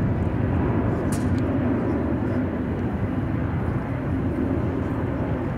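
Jet engines of an Airbus A321XLR airliner at climb power during a steep climbing display pass, heard from the ground as a steady deep rumble.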